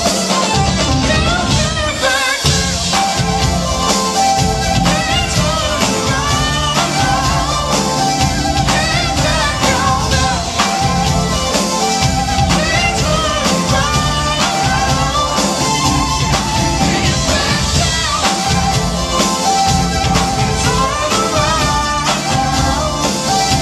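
A live R&B/soul/pop band playing: a male singer over drums, electric and acoustic guitars, bass and keyboard, with a steady beat.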